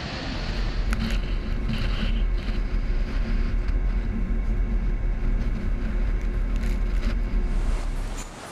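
Strong wind buffeting the microphone in a heavy low rumble, with waves and spray breaking over a ship's deck in rough seas and a few sharp knocks. Near the end it drops to a softer wash of surf.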